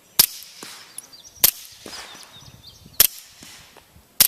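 Suppressed gunshots: four sharp cracks about one and a half seconds apart, 147-grain rounds fired through a dry suppressor.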